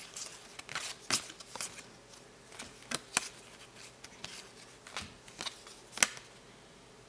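Basketball trading cards being flipped through by hand, one card slid off the stack after another: a string of sharp card flicks and rustles, the loudest about a second in and near the end.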